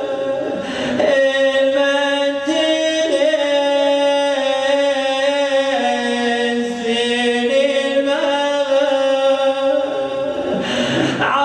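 A man chanting a Shia mourning lament (nai) unaccompanied into a handheld microphone, in long held notes that slide slowly from pitch to pitch.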